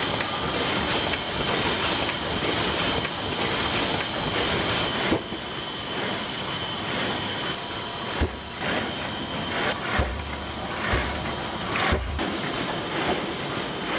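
Carton printing and hot-stamping machinery running: a steady mechanical clatter with a high whine, then a quieter machine run broken by a few low thuds in the second half.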